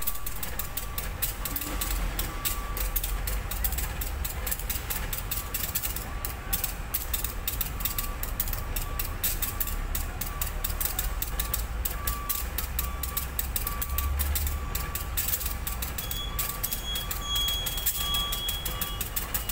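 CC201 diesel-electric locomotive running with a low, steady rumble while shunting coaches. A short high beep repeats about once a second throughout.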